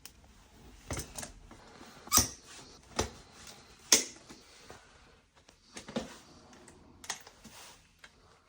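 A series of irregular sharp clicks and knocks, about seven of them spread unevenly, the loudest about two and four seconds in.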